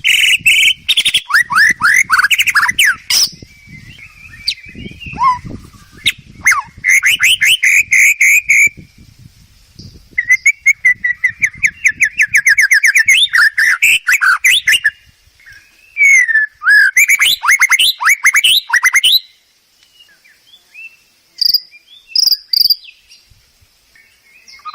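White-rumped shama (murai batu) singing: loud phrases of rapid repeated whistled notes and trills, with short pauses between them. There are only a few brief notes near the end.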